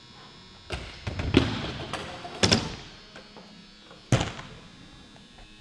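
BMX bikes landing on wooden ramps: a string of about five sharp thuds and clanks, the loudest about a second and a half and two and a half seconds in, each echoing briefly in the large hall.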